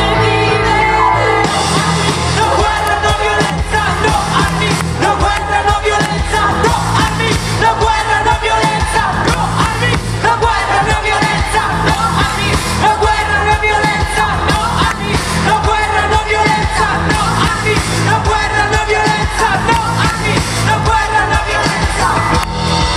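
Live pop-rock band playing, with a female lead singer over electric bass, electric guitar, drums and keyboards. The steady drum beat comes in about a second and a half in.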